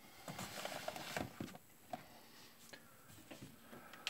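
Boxes and packets being shifted about on a pantry shelf: light knocks and rustling, busiest in the first second and a half, then a few scattered clicks.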